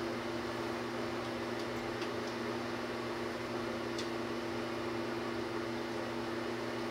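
A steady hum with a constant hiss, and a few faint clicks, the clearest about four seconds in.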